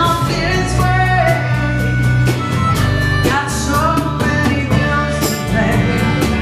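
Live blues-rock band playing: harmonica played into a microphone, with bending, sliding notes over strummed acoustic guitar, an electric bass line and a drum kit keeping a steady beat.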